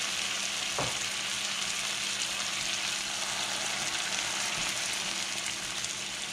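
Peppers, onion and freshly added shredded tomato sizzling in butter in a hot frying pan, a steady hiss, while a spatula stirs them. There is a single light knock just under a second in.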